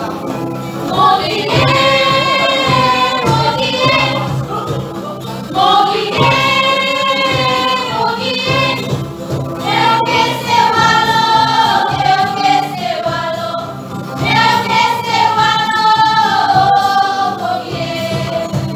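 Women's choir singing together, in sung phrases a few seconds long with short breaks between them.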